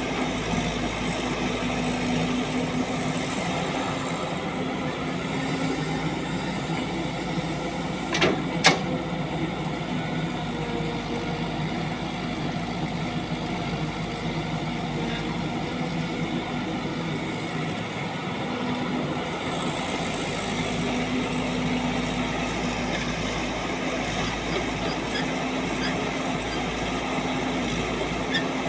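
Heavy diesel machinery engine running steadily, with two sharp knocks in quick succession about eight seconds in.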